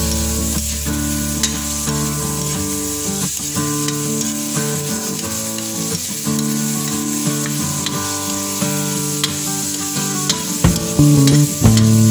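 Onions and meat stir-frying in a hot wok: oil sizzling, with a spatula scraping and knocking against the pan now and then. Background music with sustained notes plays underneath.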